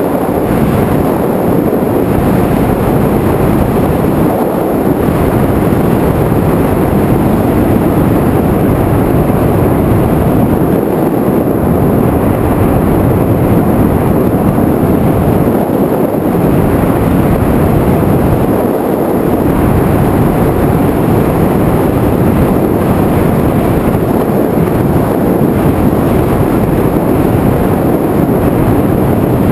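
Steady, loud rush of wind and motor noise recorded on board an FPV aircraft in flight, with no clear engine pitch and only small dips in the low end.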